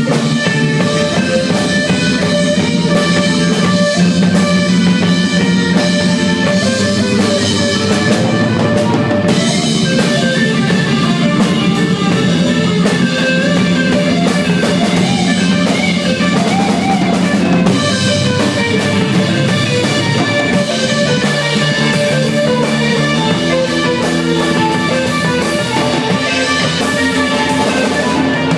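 Live band playing loudly: guitar over a drum kit with kick drum.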